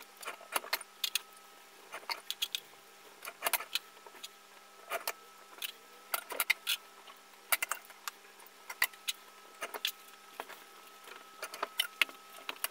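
Clothes hangers clicking and clattering against a wardrobe rail as garments are hung up: a string of short, sharp, irregular clicks.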